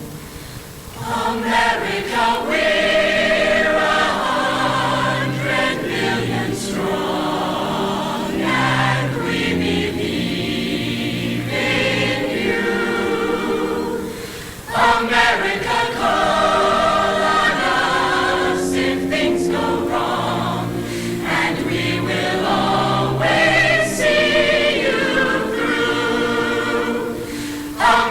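Choir singing held chords in harmony in long phrases, with a short break about halfway through.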